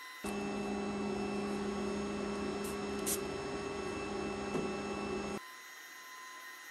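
A machine's steady electric hum with a low drone, switching on just after the start and cutting off abruptly about five seconds later, with a brief click midway.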